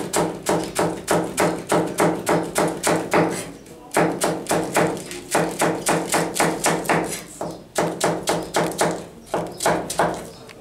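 Kitchen knife julienning cabbage on a plastic cutting board: quick, even knocks of the blade through the leaves onto the board, about four a second, with a short pause about three and a half seconds in.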